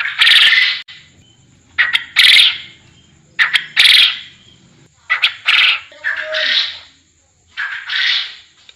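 Quail calling repeatedly for use as a trapping lure: each call is a short note followed by a longer harsh one, about every one and a half to two seconds, five times over.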